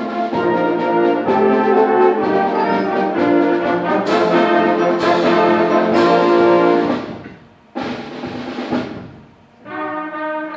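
Symphonic band playing, brass to the fore, with heavy accented hits about four, five and six seconds in. The music falls away around seven seconds, a short chord sounds, and then a softer passage begins near the end.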